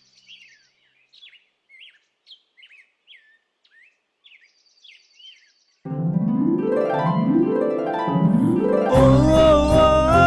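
Small birds chirp faintly in short sweeping calls. About six seconds in, background music starts with three rising plucked runs, then swells into a fuller arrangement with a held, wavering melody near the end.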